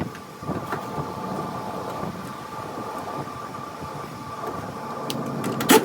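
Steady mechanical hum carrying a few constant tones, with a single sharp knock near the end.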